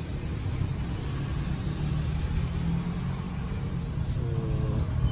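Steady low background rumble, with a short faint hum about four seconds in.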